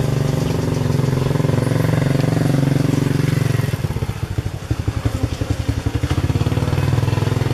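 An engine running nearby: a steady low hum that turns into a fast, regular throbbing about halfway through, then cuts off abruptly.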